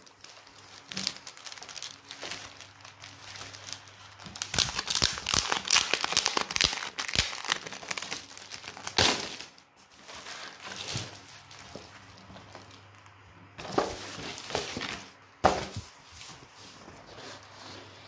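Plastic wrap on a card-backed fireworks assortment crinkling as the pack is handled and turned over, busiest in the first half, with two sharper knocks later on.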